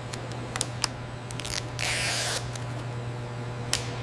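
Vinyl decal being applied to a car hood: a few light ticks and a short hissing rustle about two seconds in, as the transfer tape is handled and peeled, over a steady low hum.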